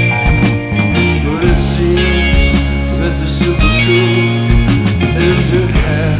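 Recorded rock song played by a band: held bass notes changing every second or so under guitar, with regular drum and cymbal hits.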